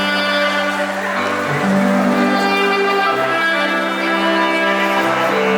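Two saxophones playing a duet in two parts, moving between long held notes.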